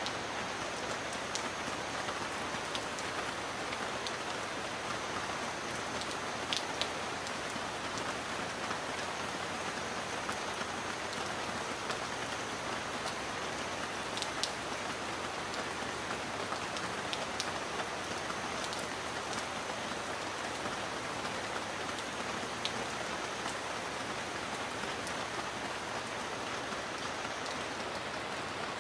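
Heavy rain falling steadily: an even hiss with scattered sharp ticks of single drops striking a surface.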